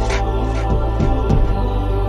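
Background music with sustained tones over a steady beat.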